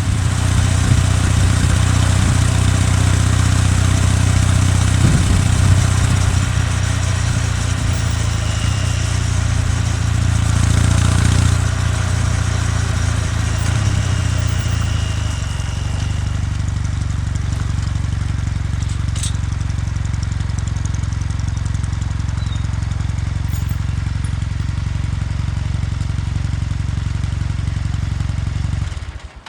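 Kawasaki W800's air-cooled parallel-twin engine running, its exhaust note steady; about halfway through it drops to a quieter, even note, and the sound cuts off abruptly just before the end.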